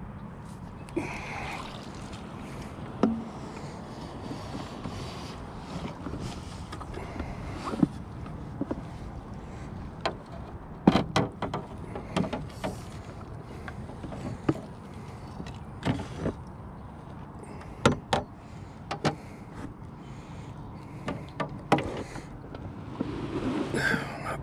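Sharp knocks and clunks against an aluminium boat as a largemouth bass is netted and handled, most of them in the second half, over a steady low hum.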